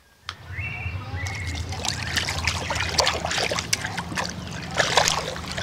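Water trickling and splashing, starting about a quarter second in with a click, full of irregular small ticks over a low steady hum.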